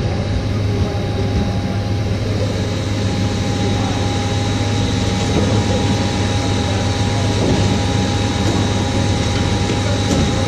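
Heavy diesel engine of a concrete truck running steadily at the slab pour, a strong low hum with a steady whine over it.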